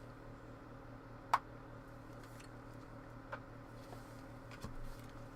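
Trading cards being handled: a sharp click a little over a second in and a softer one about two seconds later, with a few faint ticks, over a steady low electrical hum.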